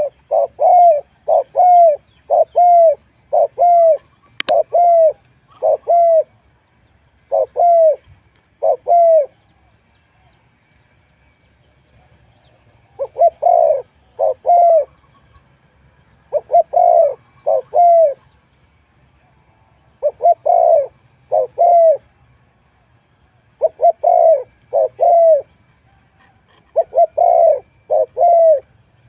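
Spotted dove cooing in repeated phrases of two to four arched notes, each phrase followed by a pause of a second or more. A single sharp click sounds about four seconds in.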